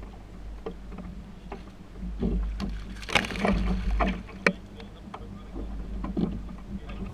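Knocks and clatter on a jon boat over a steady low hum. A louder rush of noise with sharp knocks comes about three to four and a half seconds in.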